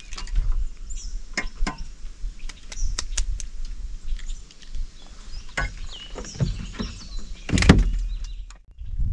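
Birds chirping in short high calls over scattered light clicks and knocks; a louder knock comes about three-quarters of the way through.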